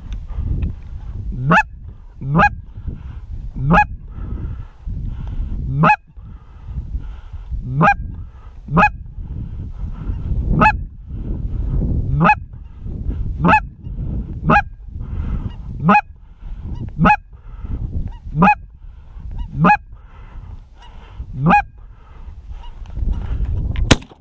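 A goose honking over and over, about once a second, each honk a sharp upward-breaking call, over a low rumble. A sharp click sounds just before the end.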